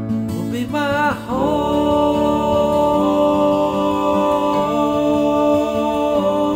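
Song with a voice holding long sung notes without words: a note slides down with vibrato about a second in, then the held notes step to new pitches every second and a half or so.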